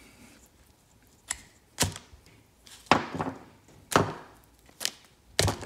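Fuel injectors from a 1993 Suzuki DT150 outboard's fuel rail being pulled out and set down one by one on a workbench: a string of sharp knocks, about one a second.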